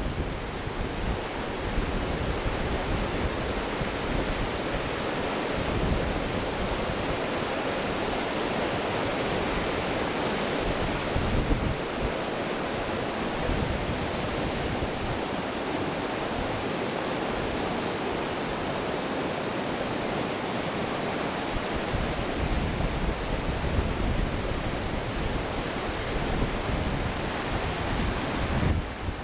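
A fast-flowing river rushing over rocks: a steady, unbroken hiss of water, with wind buffeting the microphone in a low, uneven rumble.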